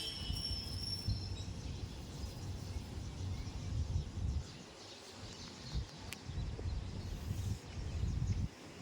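Gusty wind buffeting the microphone as an uneven low rumble that rises and falls, with faint bird chirps in the background.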